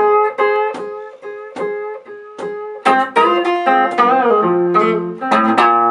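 A guitar playing a blues fill of picked single notes and chords between sung lines, some notes bent in pitch.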